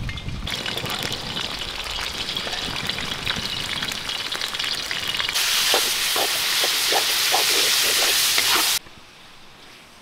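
Chunks of lamb sizzling and crackling as they sear in a hot cast-iron cauldron over a wood fire. About halfway through the sizzle grows louder and a wooden spatula stirs the meat in a run of short scraping strokes. The sound cuts off sharply near the end.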